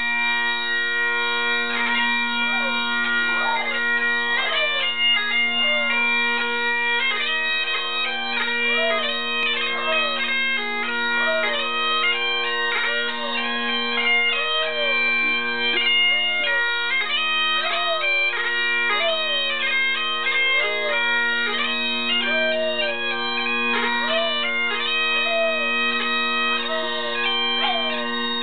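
Bagpipes playing a tune over their steady drones, with a dog howling along in short rising-and-falling howls roughly once a second.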